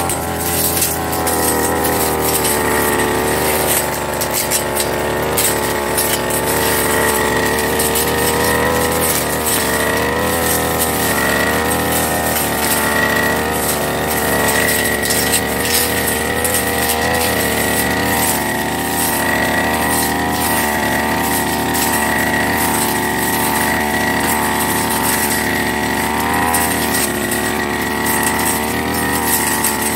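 Backpack brush cutter's engine running steadily at high speed, its pitch wavering slightly as the spinning blade cuts through grass and saplings, with frequent short ticks of stems and debris being struck.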